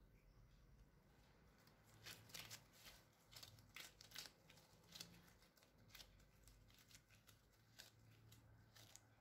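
Faint rustling and clicking of plastic-gloved hands kneading flour dough in a glass bowl: a series of short, soft handling noises starting about two seconds in.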